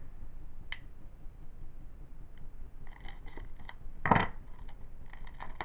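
Plastic DVD case being opened and handled: scattered small clicks, with one louder clack about four seconds in.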